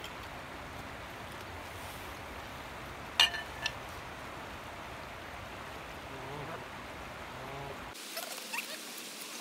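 Geese calling faintly several times over a steady wash of lapping water, with a sharp clink about three seconds in and a lighter one just after.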